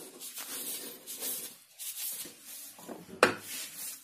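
Copper pipe rubbing and scraping in faint, uneven strokes as a lubricated inner tube with rubber O-rings is twisted into a snug outer copper tube. One sharp knock a little over three seconds in.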